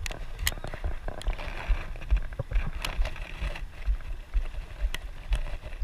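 Wind gusting on the microphone over the wash of shallow surf, with scattered sharp clicks.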